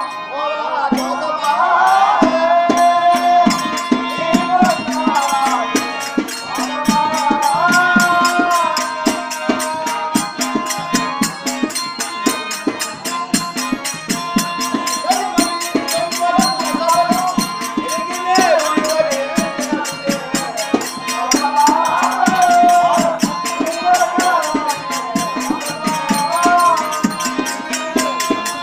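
Live folk-drama music: a fast, steady beat on hand drums and small jingling percussion, with a wavering melody line over steady held drone tones.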